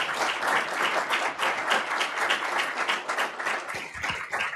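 A small audience applauding at the end of a talk: many hands clapping at once, thinning out near the end.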